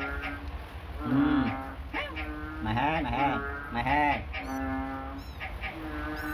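Domestic mother cat calling with a series of drawn-out, low meows, some held level and some wavering in pitch.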